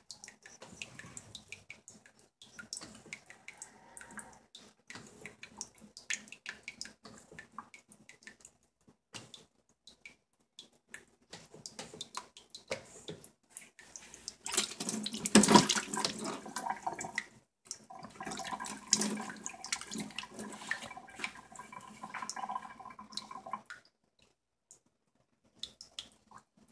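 Plastic cake scraper smoothing soft Swiss meringue frosting on a cake: wet scraping and squishing with scattered light clicks and taps. There is a louder, noisier stretch of a couple of seconds about midway, and it goes quiet shortly before the end.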